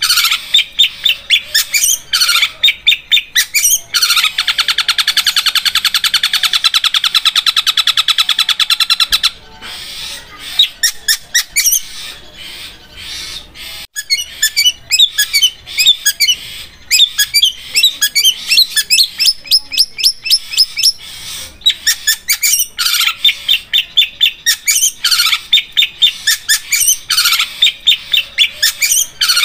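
Long-tailed shrike (cendet) singing. Its harsh notes come in quick repeated series, with a long, very fast rattling trill like a sewing machine from about 4 to 9 seconds in. Quieter, varied chattering follows, then the fast harsh notes return.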